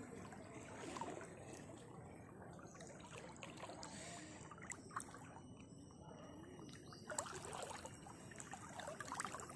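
Faint splashing and trickling of floodwater, with small irregular sloshes now and then.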